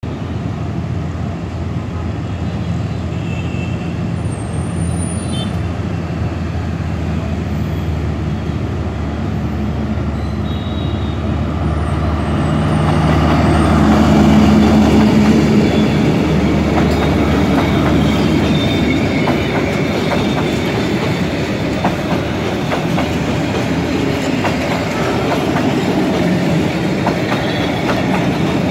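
D19E diesel-electric locomotive's engine approaching with a steady low hum, loudest as it passes about halfway through. Passenger coaches then roll past, wheels clicking over the rails.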